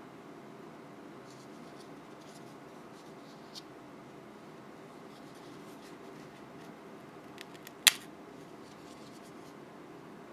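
Crisp wafer shell of a panda-shaped aerated-chocolate monaka being snapped in half by hand: a few faint crackles, then one sharp crack late on, followed by light crumbly crackling.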